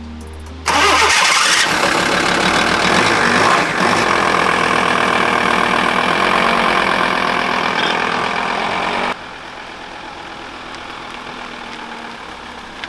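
VW T4 van engine starting abruptly about a second in and then running steadily. About nine seconds in it drops suddenly to a much quieter steady running sound.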